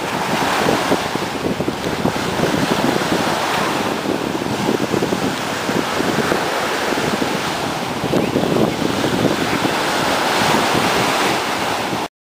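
Ocean surf breaking and washing ashore, with wind buffeting the microphone. It cuts off suddenly near the end.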